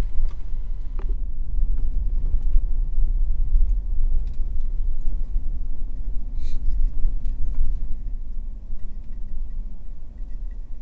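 Low, steady rumble of a 4x4 truck driving on a bumpy dirt trail, heard from inside the cabin, with scattered light clicks and rattles.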